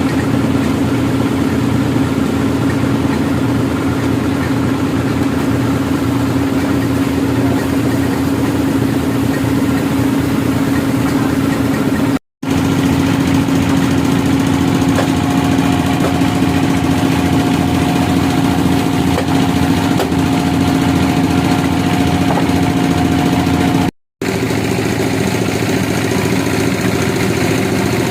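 Sawmill engine running steadily with a low, even drone. The sound cuts out for an instant twice, about twelve and twenty-four seconds in.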